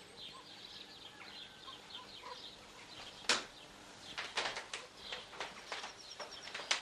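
Small birds chirping and twittering in the background, with a series of short, sharp calls from about three seconds in.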